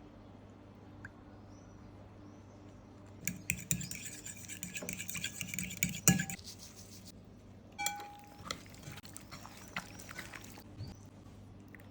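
Dishes and kitchen utensils clinking and tapping during salad preparation. There is a busy run of quick taps and rustling from about three seconds in, with one sharp knock near the middle. Brief ringing clinks follow, then a few scattered taps.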